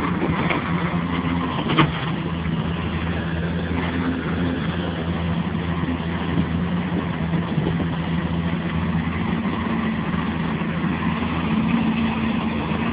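Engine of a heavy construction machine running steadily at an even pitch, with one sharp knock about two seconds in.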